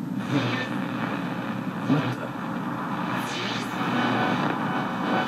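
Steady drone of an airship's engines in an animated show's soundtrack, with a short blip about two seconds in.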